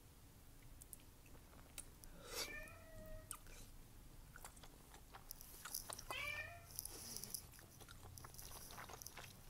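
A cat meows twice, about two seconds in and again about six seconds in, over soft wet chewing and mouth clicks from someone eating wide glass noodles in red sauce.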